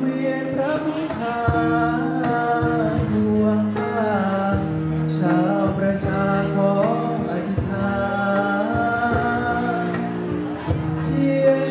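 A man sings a Thai song into a microphone, accompanied by acoustic guitar and a cajon keeping a beat.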